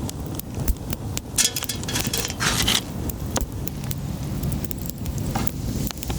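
Campfire crackling, with scattered sharp pops and a couple of brief hissing bursts.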